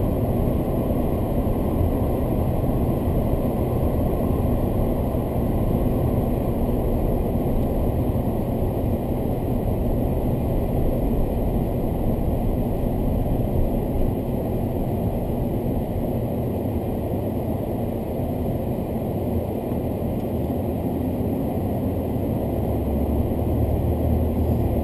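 Car cabin noise while driving: a steady rumble of engine and tyres on the road. A deeper hum grows stronger near the end.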